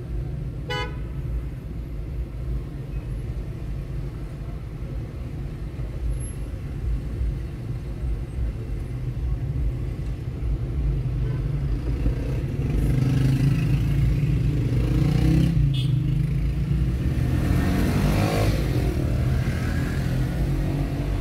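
City traffic heard from a car driving slowly: a steady low rumble of engine and road, with a short car horn toot about a second in. From about halfway the traffic grows louder, and a motorcycle engine rises and falls as it passes close alongside near the end.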